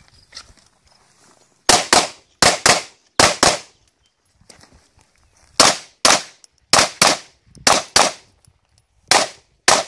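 Glock 17 9mm pistol fired rapidly in close pairs: about fourteen shots, with a pause of about two seconds after the first six.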